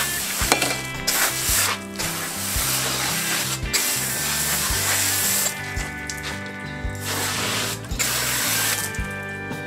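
Pistol-grip hose spray nozzle jetting water onto a halibut lying on a wooden cutting board: a steady hiss of spray that drops away for a couple of seconds past the middle, then comes back. Background music with a beat plays throughout.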